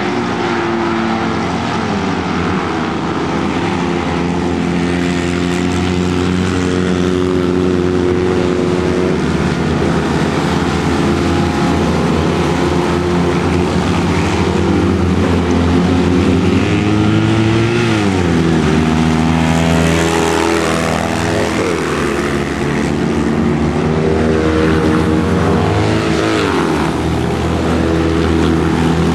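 Citroën 2CV-class autocross cars racing, their small air-cooled two-cylinder engines revving hard. Engine pitch drops and climbs again several times as the drivers lift off and accelerate through corners, most clearly a little past halfway and again near the end.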